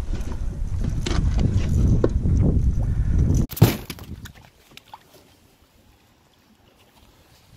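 Wind rumbling on the microphone of an angler's camera, with scattered clicks and knocks from handling gear on a plastic fishing kayak. About three and a half seconds in it cuts off suddenly after a short burst, leaving only a faint hush with a few small ticks.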